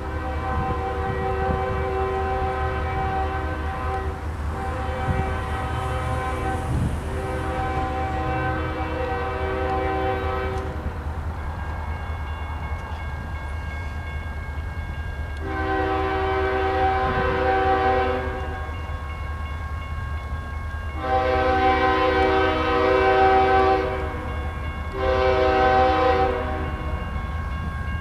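Air horn of a CSX GE ES40DC diesel locomotive blowing for a grade crossing as the train approaches: several long blasts over the first ten seconds, then after a pause the crossing pattern of long, long, short, with another blast starting right at the end. A steady low rumble runs underneath.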